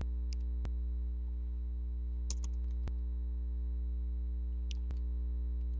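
Steady low electrical hum with a few faint mouse clicks, about two seconds apart.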